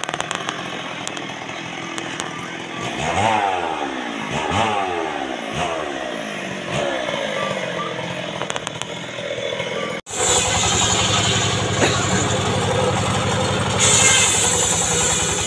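An engine's pitch falls several times in the first half. About ten seconds in, the sound jumps to a cart-mounted traveling circular sawmill: its engine runs steadily and the blade rips acacia planks with a high-pitched hiss.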